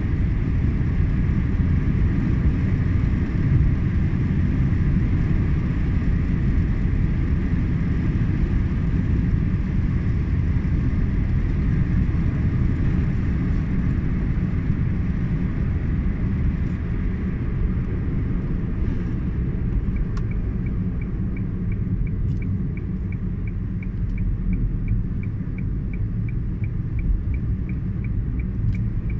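Steady low rumble of tyre and engine noise inside a moving car's cabin. From about twenty seconds in, the rumble eases a little and the turn-signal indicator ticks evenly, about two to three ticks a second.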